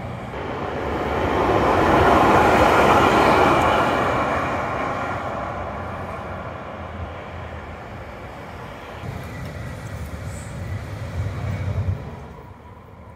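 Tram running along street track: a rolling rush that swells over the first few seconds and slowly fades. A lower rumble follows later and drops away near the end.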